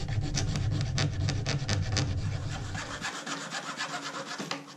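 Small hacksaw cutting through a white plastic strip clamped to a table: quick back-and-forth strokes, several a second, scraping steadily.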